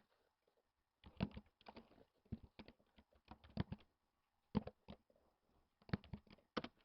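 Typing on a computer keyboard: irregular clusters of quiet key clicks with short pauses between them, starting about a second in.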